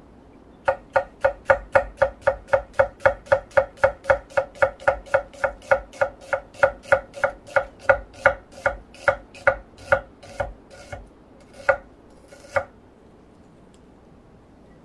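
A knife slicing a red onion on an end-grain wooden cutting board: a steady run of knife strikes on the board, about three to four a second. The strikes slow toward the end and finish with two separate cuts.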